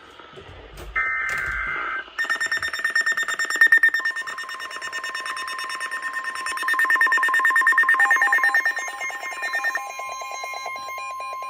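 Emergency alert tones for a new tornado warning, several of them overlapping: short two-tone blasts give way to a harsh, rapidly pulsing alarm. A steady high tone joins a few seconds in, and a second pulsing alarm takes over near the end.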